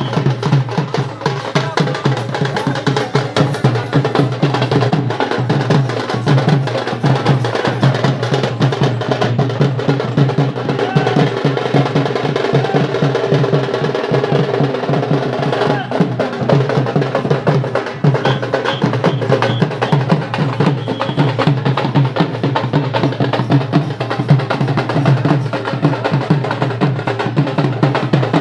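Rajasthani dance music with fast, steady drumming.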